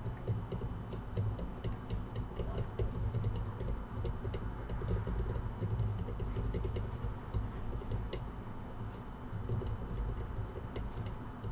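A steady low machine hum from the repair bench, with scattered light clicks and ticks of small tools on a laptop motherboard during solder cleanup.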